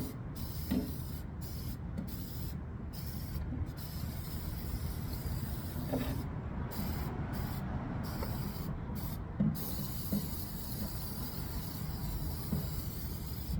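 Aerosol can of rust protector spraying, a hiss broken by several short pauses about halfway through, over a steady low hum with a few light knocks.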